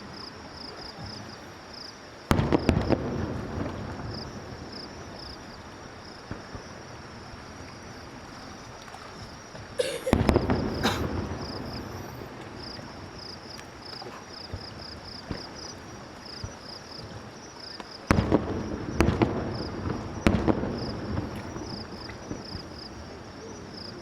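Aerial fireworks bursting: three loud booms about 2, 10 and 18 seconds in, each followed by a few smaller bangs and a fading rumble. Insects chirp steadily in a fast even pulse underneath.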